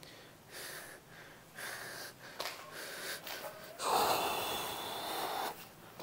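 A man breathing heavily close to the microphone, in short breaths about once a second, then a louder, longer rush of breath noise about four seconds in.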